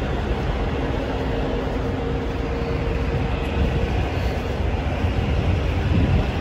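Steady low rumble of idling diesel trucks across a truck stop lot, with a faint hum that fades out about two-thirds of the way through.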